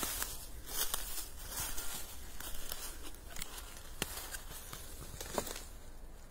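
Footsteps crunching through dry fallen leaves on a forest floor, an irregular run of rustling crunches with a couple of sharper snaps.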